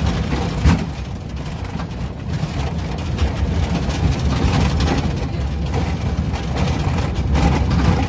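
Inside a vehicle's cabin as it drives over a rough dirt road: a steady low engine and road rumble, with the body knocking and jolting over bumps, the sharpest jolt less than a second in.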